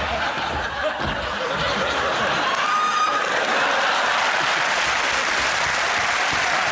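Studio audience laughing and applauding, building over the first second and then holding steady.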